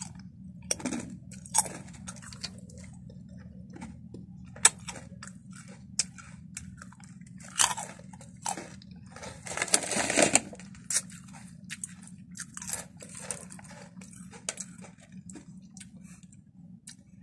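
A person crunching and chewing crispy potato chips close to the microphone: many short, sharp crunches scattered throughout, with a couple of longer noisy stretches around eight and ten seconds in. A low steady hum runs underneath.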